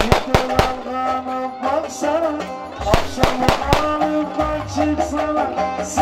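Ankara oyun havası folk dance music: a held, wavering melody line over sharp drum strokes that come in quick clusters near the start and again about halfway.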